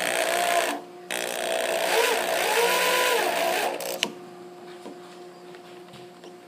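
Electric drill driving a screw into the wooden soundbox of a harp: the motor runs in two bursts, the second with its pitch rising and falling as the trigger is eased, then a sharp click about four seconds in as it stops.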